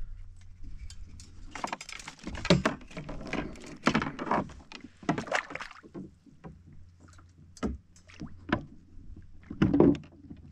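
Irregular knocks, bumps and rustling from moving about and handling gear aboard a plastic Hobie Compass fishing kayak, the loudest knocks about two and a half seconds in and near the end.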